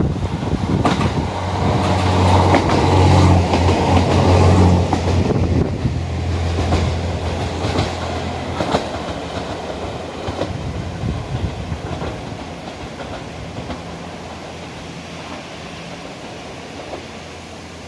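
JR Hokkaido H100 series diesel-electric railcar passing beneath, its engine running and its wheels clicking over the rail joints. It is loudest a few seconds in, then fades steadily as the railcar pulls away.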